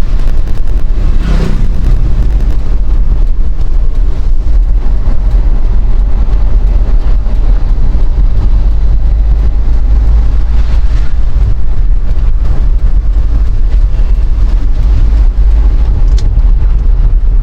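Strong wind buffeting the microphone as a loud, steady low rumble, over the noise of a moving vehicle on the road.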